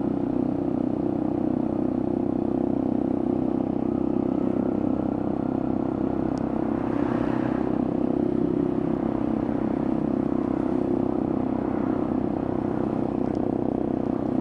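Motorcycle engine running at a steady cruising speed under wind and road noise, with a brief swell of noise about seven seconds in.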